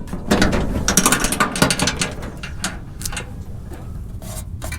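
Hand ratchet wrench clicking in quick strokes as a bolt is turned, dense for the first couple of seconds and then sparser.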